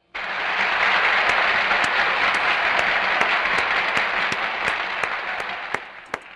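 Applause, starting suddenly and dying away near the end, with a few single claps standing out as it fades.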